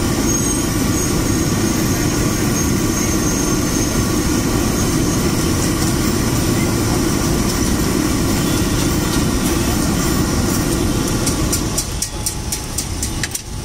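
Steady, loud low rumble, with a series of quick light metallic clicks near the end as a spoon taps the iron tawa.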